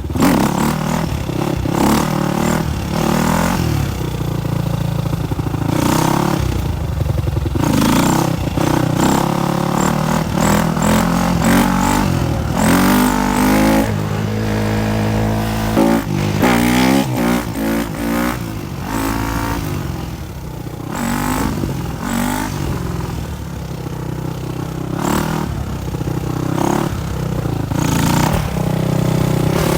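Supermoto motorcycle engine revving up and down hard, over and over, with runs of rising revs as it pulls through the gears. Frequent sharp clattering knocks come through over the engine.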